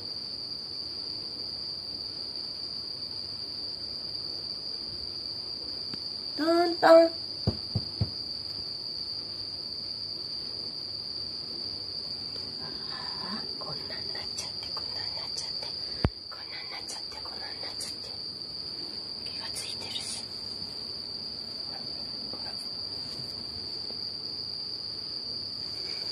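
Crickets chirring in a continuous, steady high trill. About seven seconds in, a short call and a couple of sharp knocks stand out over it.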